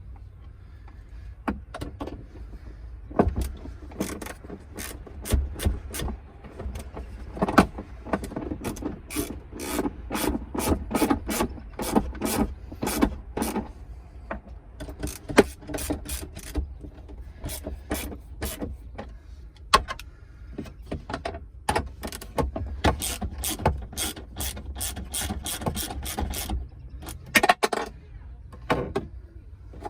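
Socket ratchet clicking in quick runs of strokes, driving in 15 mm bolts.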